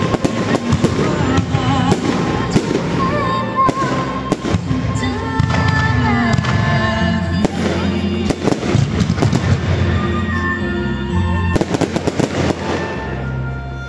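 Aerial firework shells bursting in a rapid, irregular series of loud bangs over the show's accompanying music, with the explosions drowning out the music. The bangs thin out near the end, leaving the music.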